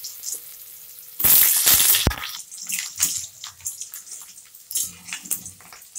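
Potato chunks frying in hot oil in a steel kadai, the oil sizzling, with a louder surge of sizzle about a second in. A metal spatula scrapes and clicks against the pan as the potatoes are turned.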